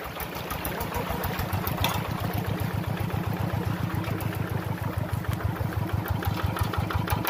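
Two-wheel hand tractor's single-cylinder diesel engine running steadily with an even, rapid chug.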